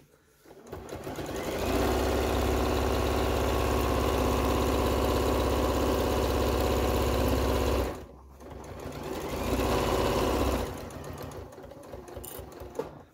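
Domestic electric sewing machine stitching a seam through layered fabric. It speeds up over the first couple of seconds, runs steadily at full speed, stops briefly about eight seconds in, then runs again for a couple of seconds and continues more softly near the end.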